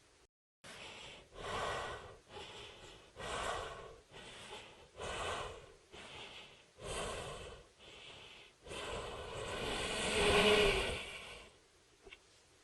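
Homemade monster sound effect made from a person's breathing: a series of short raspy breaths about one a second, then one longer breath that swells and cuts off near the end.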